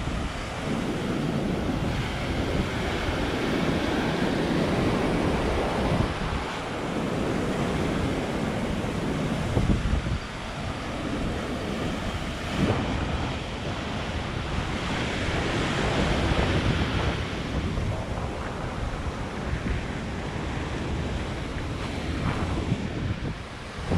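Heavy sea surf breaking and washing over a rocky shore in rising and falling surges, with wind buffeting the microphone.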